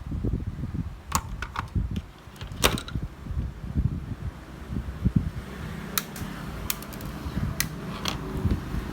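Sharp clicks and knocks from handling tools and parts during hands-on repair work, scattered irregularly over low rumbling handling noise. A steady low hum sets in about halfway through.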